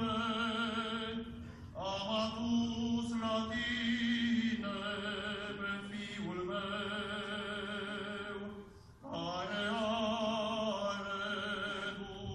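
Orthodox liturgical chant: voices singing a slow melody over a steady held low note, with a brief break about two seconds in and another near the end.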